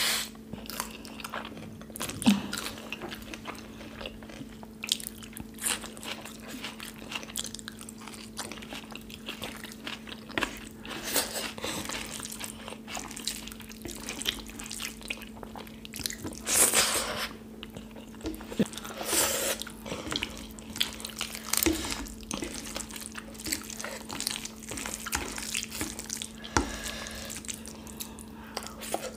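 Close-up eating sounds of rice and kadhi eaten by hand: wet chewing, lip smacks and fingers squishing and mixing the soft rice and curry, in short irregular clicks with a few louder bursts, over a faint steady low hum.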